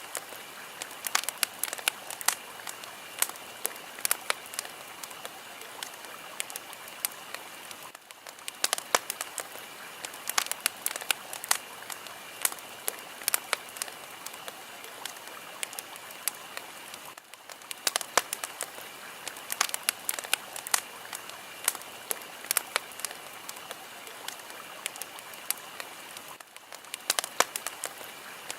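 Fire crackling: sharp pops and snaps, some loud, over a steady hiss. A short recording repeats about every nine seconds.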